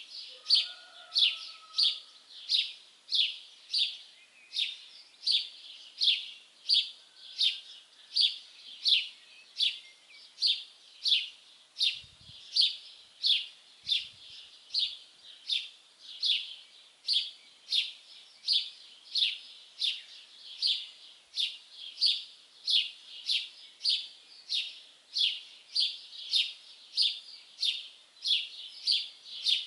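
A songbird calling one short, high, downward-sliding note over and over, evenly spaced at about two a second. A fainter, lower bird call is heard briefly about a second in.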